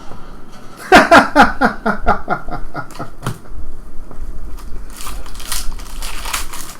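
A person laughing: a quick run of about a dozen pitched 'ha' pulses starting about a second in, falling in pitch over two seconds, followed by softer rustling noises.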